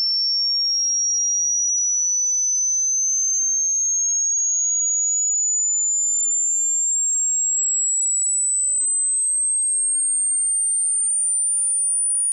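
Synthesized pure sine tone imitating tinnitus: a single very high-pitched whistle at steady loudness, rising slowly and evenly in pitch.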